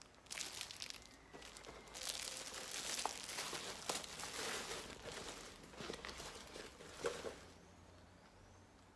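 Plastic wrapping crinkling and rustling as it is handled, with a few light clicks, dying away near the end.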